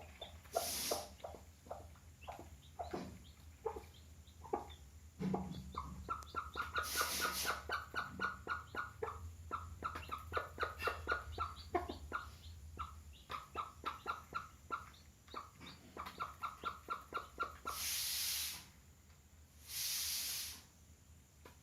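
Chickens calling: scattered short calls, then a long run of quick, evenly repeated short calls that stops near the end. Several brief bursts of hissing noise come through it.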